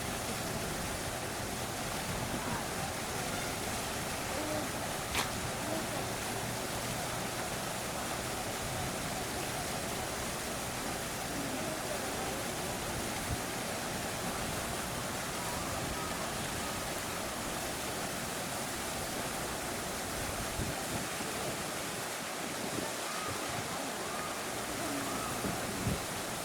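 Steady, even outdoor background noise with faint distant voices, and a single sharp click about five seconds in.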